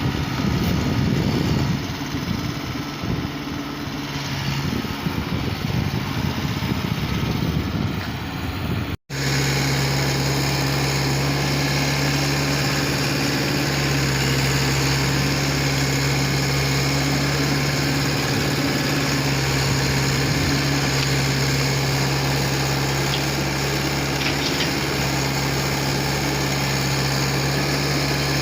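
Diesel engine of heavy construction machinery running. It is uneven at first, then a sudden break about nine seconds in, after which it runs steadily at an even pitch.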